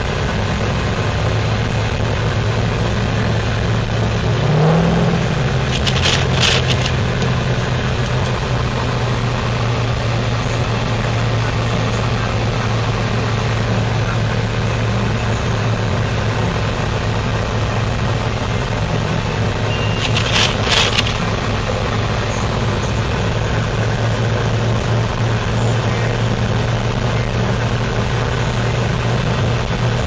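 Vehicle engine and road noise heard from inside the cabin while driving on snow, with a steady low hum. Two brief high-pitched sounds come about six and twenty seconds in.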